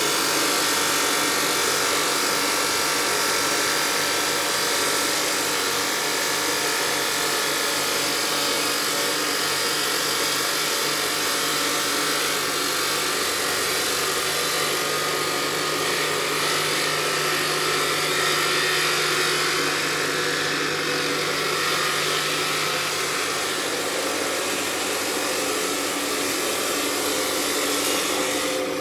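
Stone-working machinery in a marble factory running steadily, a continuous grinding din with a low hum under it.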